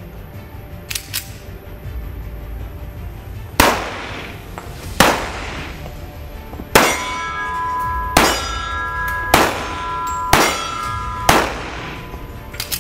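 Seven shots from a .45-calibre semi-automatic pistol in an echoing indoor range, spaced about one to two seconds apart. A metallic ringing tone lingers between the later shots, and a few light clicks come about a second in.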